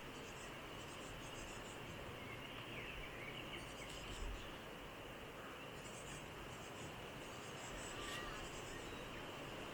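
Faint outdoor field ambience: a steady hiss with short bursts of high insect chirring every second or two, and one low thump about four seconds in.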